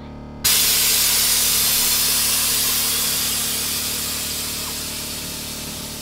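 Air Lift Performance air suspension on an S550 Mustang letting the air out of its bags to drop the car all the way to the ground. A loud hiss starts suddenly about half a second in and slowly fades.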